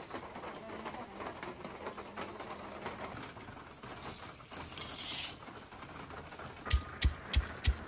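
Green cardamom pods poured into a brass mortar, a short rattling rush about four seconds in. Near the end a pestle starts pounding the pods in the mortar, about three strikes a second.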